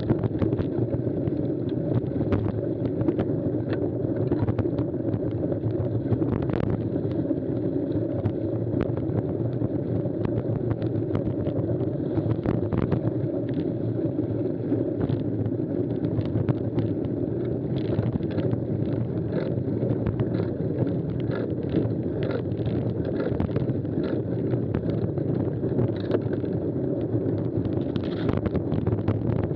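Mountain bike riding fast over a muddy, rough forest track: a steady rumble of tyres rolling through mud and wind over the camera microphone, with frequent clicks and rattles from the bike and grit hitting the camera, more frequent in the second half.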